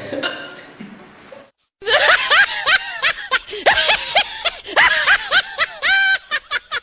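High-pitched laughter in quick, short pulses with rising and falling pitch, starting after a brief dead-silent cut about one and a half seconds in.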